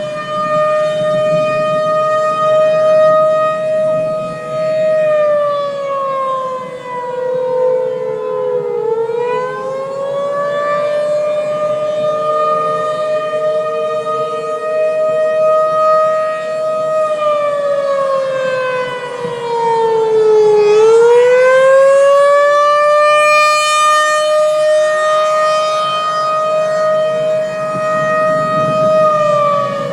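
Outdoor tornado warning siren wailing: a long steady tone that sags in pitch and climbs back twice, then starts to fall again at the end.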